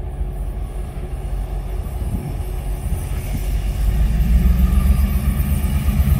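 Diesel locomotives of a ballast train, led by TasRail DQ-class 2011, working under power as they approach. The low engine rumble grows louder from about four seconds in.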